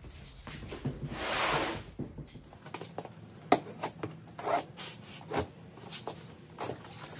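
A large cardboard box holding a welder being handled on a concrete floor: a scrape lasting about a second, starting about a second in, then a few sharp knocks and short rubs of hands on the cardboard.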